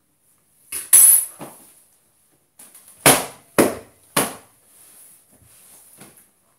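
A hand slapping a kitchen countertop: one loud slap about a second in, then three more in quick succession about three seconds in.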